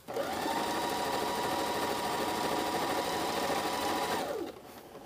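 Husqvarna Viking Emerald sewing machine running at a steady speed for about four seconds, stitching a long basting line at its longest stitch length, then slowing and stopping near the end.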